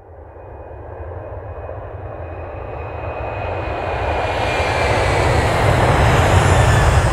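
Aircraft engine noise that grows steadily louder over several seconds: a dense rushing sound with a faint high whine slowly falling in pitch.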